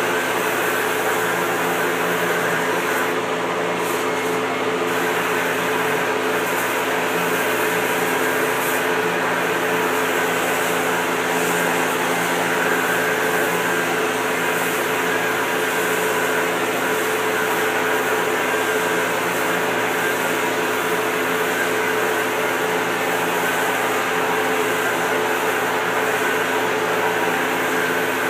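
Electric rotary sander running steadily with a constant motor whine, its sanding disc working across the surface of a surfboard.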